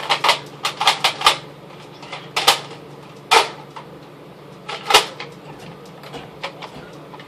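Scattered sharp clicks and clatters of something being handled close to the microphone, about ten in all: a quick run in the first second and a half, then single ones every second or so, over a steady low hum.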